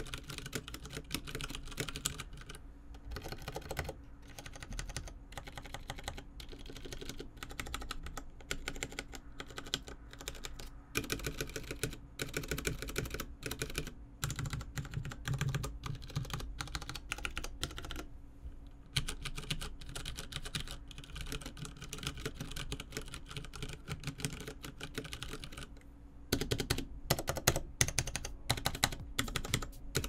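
Typing on a Vortex Poker 3 60% mechanical keyboard with tactile Cherry MX Brown switches, OEM-profile ABS keycaps and a steel case: a steady patter of key clicks with a few short pauses. Near the end the keystrokes come louder and more spaced out, single keys pressed one at a time.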